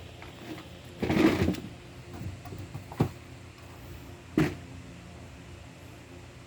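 Two small pets playing: a brief rustling scuffle about a second in, then two sharp knocks, over a steady low hum.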